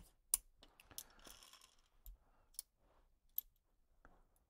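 Small metal clicks from a partly disassembled Heritage Rough Rider .22 single-action revolver being handled: a handful of faint, sharp clicks about a second apart, with a soft rustle of hands and parts between them.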